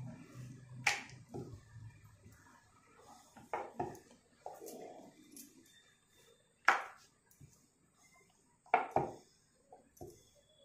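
Scattered knocks and taps of a rolling pin and dough on a rolling board while puri dough is folded and rolled out. The sharpest knocks come about a second in, twice near four seconds, and near seven and nine seconds.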